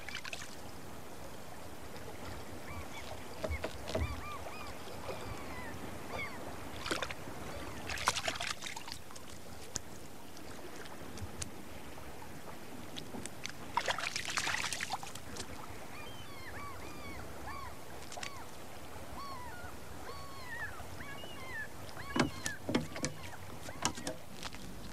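Seashore ambience: a steady wash of sea with birds giving many short rising-and-falling calls, and two louder surges of breaking surf, about eight seconds in and again about six seconds later.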